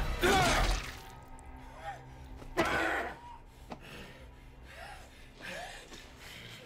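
A man gasping and breathing hard, winded from fighting, with the loudest gasps at the start and about two and a half seconds in, over a faint, steady low music drone.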